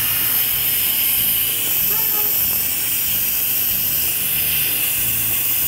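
Instant Pot electric pressure cooker venting steam through its pressure release valve in a quick release: a steady, strong hiss. The cooker is still under pressure after cooking.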